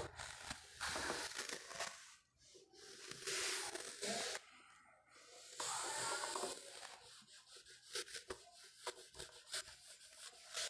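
Scratchy rubbing and scraping noises, close to the microphone, in bursts of about a second with short quiet gaps, then a run of small sharp clicks through the second half.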